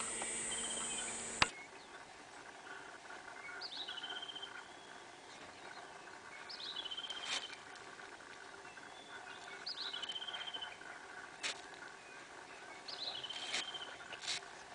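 A bird calling again and again, roughly every three seconds. Each call is a short sweep running into a trill. A sharp click comes about a second and a half in, and a few fainter clicks fall between the calls.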